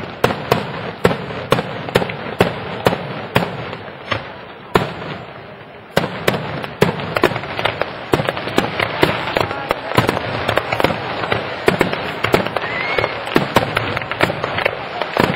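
Fireworks display: aerial shells bursting with sharp bangs about two a second, then from about six seconds in a dense, rapid barrage of bangs and crackling as many shells go off together.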